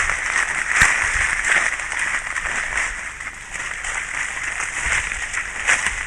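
Tropical forest ambience from a trap camera: a steady high hiss of insects, with light rustles and a single low thud about a second in.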